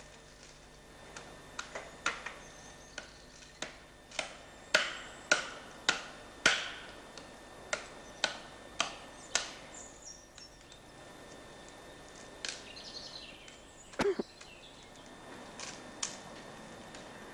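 Steps on hard ground: a run of sharp knocks about every half second that stops after several seconds, then one louder knock a few seconds later.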